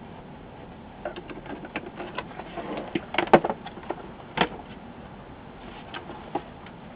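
Scattered clicks and knocks of an opened LCD monitor's panel and plastic chassis being handled, turned over and set down on a workbench, with the loudest knocks a little past three seconds and again just after four.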